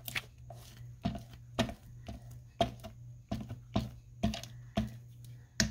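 Glue stick rubbed over paper in short strokes, a brief scrape with each pass, about two a second.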